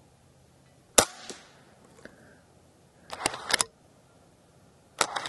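Umarex Zelos .22 PCP bullpup air rifle firing one shot about a second in, a sharp crack. About three seconds in comes a quick run of metallic clicks as the action is cycled for the next pellet, and another sharp crack follows at the very end.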